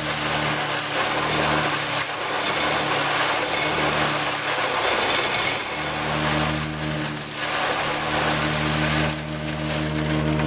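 Chopped corn silage blown up a silo fill pipe and rushing out of the deflector hood into the silo, a steady hiss of material. Under it runs a steady machine drone from the forage blower, which fades out from about a second in and comes back about six seconds in.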